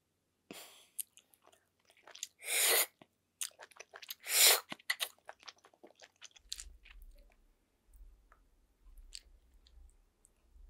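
Close-miked sucking of snail meat out of the shell, two loud slurps about two and a half and four and a half seconds in, then chewing with small wet clicks and smacks of the mouth.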